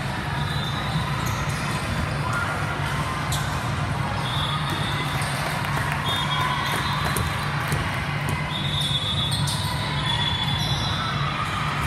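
Echoing din of a multi-court indoor volleyball hall: scattered knocks of volleyballs being struck and bouncing, short high squeaks, and a steady low hum under the general hubbub.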